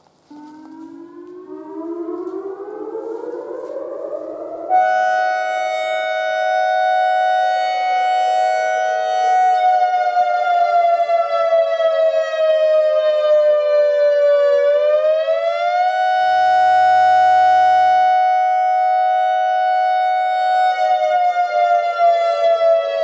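ACA Alertronic AR-1600 electronic outdoor warning siren winding up over about five seconds to a loud, steady high tone. Its pitch sags slightly and climbs back partway through, then starts to fall near the end.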